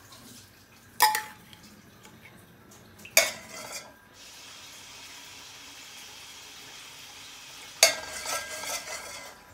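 A long steel spoon knocking sharply against a steel serving bowl and a cast iron pot as vegetable oil is ladled in, once about a second in and again about three seconds in, with a longer clatter near the end as the bowl is tipped over the pot. Between the knocks, a steady hiss of the oil sizzling in the hot pot.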